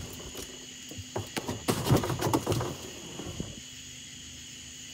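Crickets chirping steadily in the dark, over a low steady hum. A short run of knocks and rustles comes in the middle.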